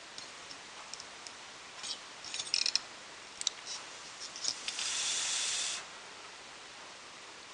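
Soldering iron tip scraping and clicking against the metal terminals of a Lucas 15AC alternator's rectifier, then flux sizzling on the hot joint in a steady hiss for about a second, cut off when the iron is lifted.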